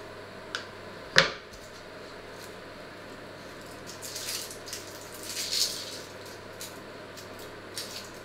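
A small wooden board set down with a sharp knock on a wooden cutting board about a second in, then dry onion skin rustling and crackling in two short spells as an onion is peeled by hand, with a few small clicks, over a faint steady hum.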